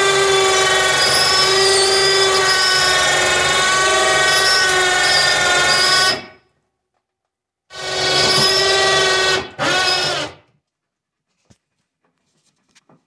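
Ceiling-mounted electric hoist motor running under load as it lifts a diesel engine: one long run of about six seconds, then a pause, a run of about two seconds and a brief final blip.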